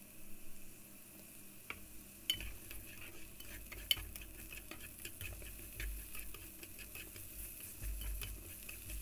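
Julienned carrot strips sizzling lightly in a nonstick frying pan as long wooden chopsticks stir them, with scattered clicks of the chopsticks against the pan.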